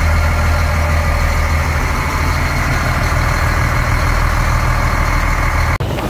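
Fishing boat's engine running steadily under way, a constant low hum heard from inside the cabin. It cuts off suddenly near the end.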